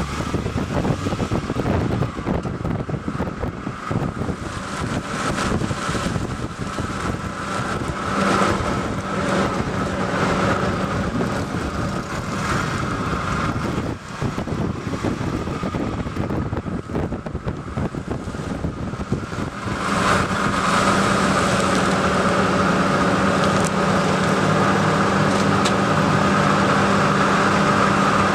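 A 2000 Toyota Celica GT-S rolling slowly over concrete pavement, heard from just behind its left front wheel: a noisy rumble of tyre and road with wind on the microphone and frequent small knocks. About two-thirds of the way through the noise becomes steadier and a little louder, with a steady hum.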